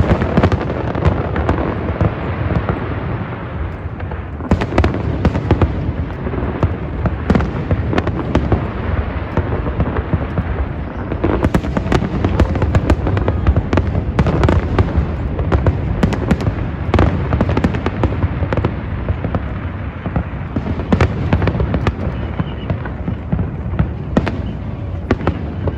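Fireworks display: a continuous run of bangs and crackles over a steady low rumble, in bursts of denser volleys.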